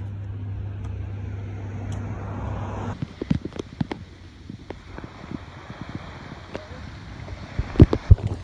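A steady low hum for about three seconds, then, after a cut, irregular gusts of wind buffeting the phone's microphone on an open beach, with one loud buffet near the end.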